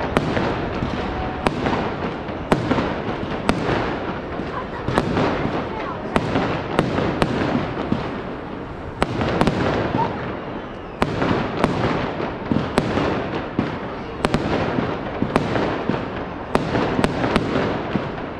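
Fireworks going off: sharp bangs of bursting shells about once or twice a second, over a steady dense din.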